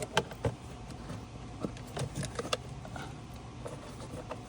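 Scattered light clicks and taps of hand tools and small parts being handled while working under a car's dash, over a faint steady low hum.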